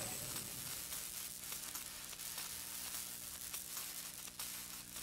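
Steady crackling hiss like static, with a faint low hum underneath and scattered light crackles.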